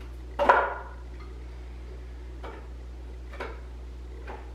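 Frozen banana being broken into pieces by hand and dropped into a blender jar: four sharp knocks about a second apart, the first, about half a second in, the loudest.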